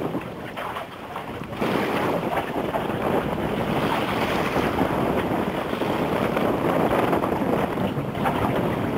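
Wind buffeting the microphone over the wash of water around a sailing boat under way; the noise steps up and grows louder about a second and a half in.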